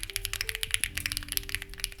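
Fast, continuous typing on a Lucky65 v2 mechanical keyboard: a quick run of clicks from stock, unlubed HMX Ziwei switches under white-on-black CMK-profile clone keycaps. Soft background music plays underneath.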